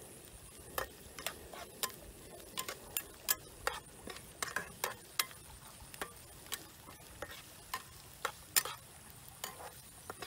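Metal spatula clinking and scraping against a frying pan while stir-frying, in quick irregular clicks, two or three a second.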